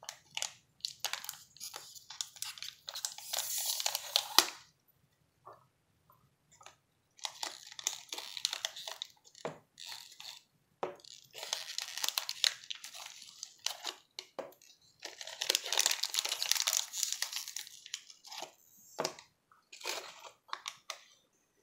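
A thin clear plastic candy wrapper being torn open and crinkled by hand, with the foil-wrapped Hershey's Kisses inside rustling as they are handled and pulled out. The crinkling comes in several bursts of a few seconds each, with a short pause after about four seconds.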